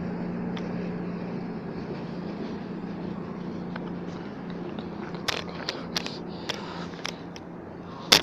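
A Class 220 Voyager diesel multiple unit running out of the station with a steady low engine hum that fades away. From about halfway through come scattered sharp clicks, ending in a loud knock right at the end.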